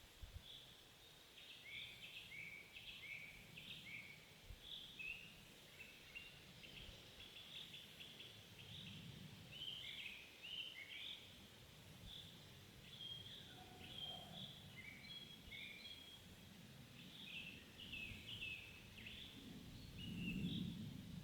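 Small birds chirping and twittering in quick, repeated short calls, faint, over a low rumble that swells briefly near the end.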